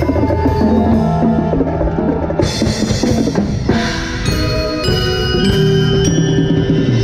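Percussion-ensemble music with drums and held pitched notes, picked up close to a mallet keyboard. A bright wash comes in about two and a half seconds in.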